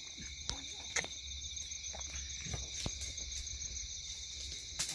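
A night insect chorus of crickets gives a steady, high-pitched shrill. A few sharp clicks fall about half a second in, at one second, near three seconds and near the end.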